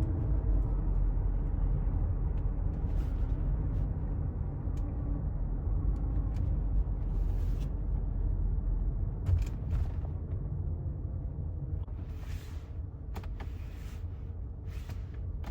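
Low engine and road rumble inside a car's cabin at low speed, slowly growing quieter, with a few brief soft hissing noises. The engine keeps running even though the start button has been pressed while moving.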